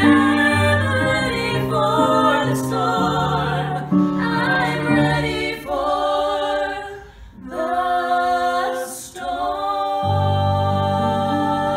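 Three voices, two women and a man, singing a song together in close harmony, with vibrato on the sustained notes. The singing breaks off briefly about seven seconds in, and near the end the voices hold a chord with a low note underneath.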